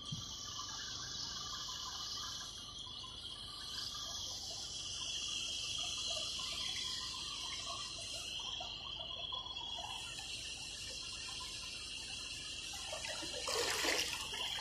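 Steady, high-pitched chorus of insects, with a brief louder rushing burst near the end.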